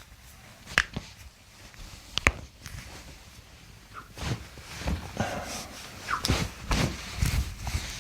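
Two sharp cracks of toe and ankle joints being manipulated, about a second and a half apart. After them come shuffling and handling noises with a few short squeaks as the foot is worked.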